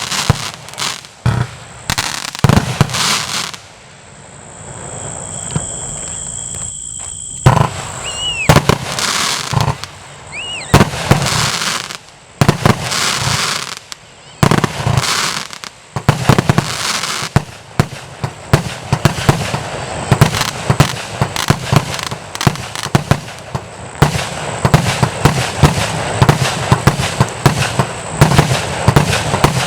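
A 240-shot fireworks compound cake firing a rapid sequence of shots with bursts and crackle. A steady high tone sounds from about 4 to 8 seconds in, with two short whistles soon after. From about halfway through, the shots come in a fast, dense volley.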